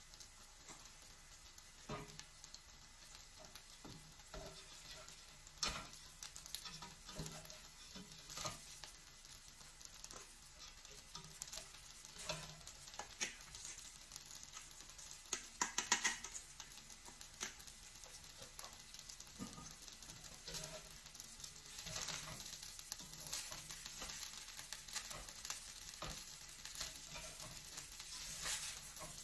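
Rice and scrambled egg frying in a stainless-steel pot, a faint sizzle under irregular scrapes and taps as a slotted spatula pushes rice out of a metal colander and stirs it through. There is a sharper clatter about halfway through.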